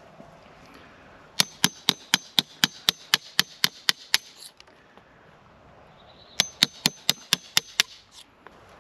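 Claw hammer driving a wood chisel to pare a notch flush in a hardwood fence post. A run of about a dozen sharp strikes comes at about four a second, then after a pause a second run of about seven.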